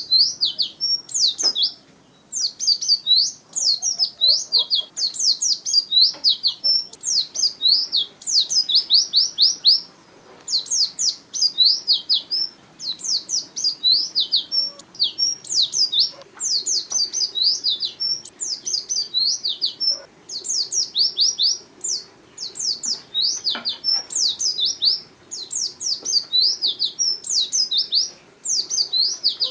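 White-eye (pleci) singing its energetic song: fast, high-pitched twittering runs of quick down-slurred notes, phrase after phrase with brief pauses between.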